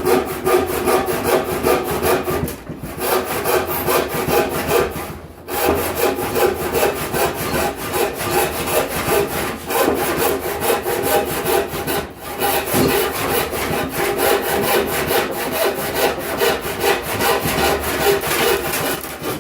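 Panel saw ripping a wooden board along the grain with steady back-and-forth strokes. It pauses briefly three times and stops near the end as the cut is finished.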